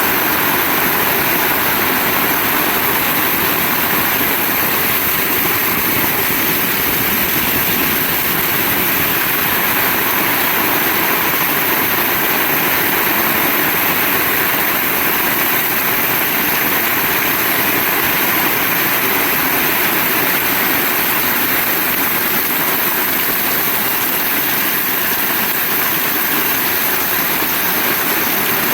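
Heavy rain falling steadily, an even, unbroken hiss and patter.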